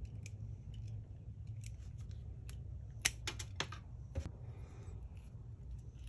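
Hand wire stripper working on 10-gauge PV wire, cutting and pulling the insulation off: light ticks, then a cluster of sharp clicks a little past halfway and a single click about a second later.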